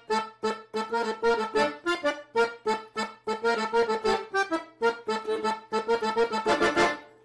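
Piano accordion played in a quick run of short, separated notes and chords, stopping near the end.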